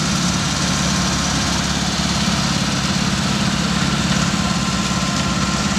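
Miniature park train's locomotive engine running with a steady low hum as it pulls its loaded passenger cars slowly along the track.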